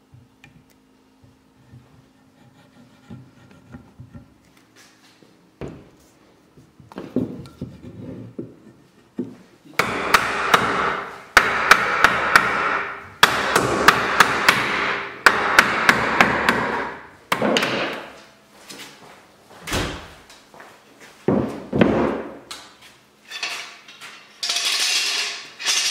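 Mallet blows driving a glued wooden table frame together at its dowel joints: a few light knocks, then several loud runs of rapid blows lasting a second or two each, followed by single knocks.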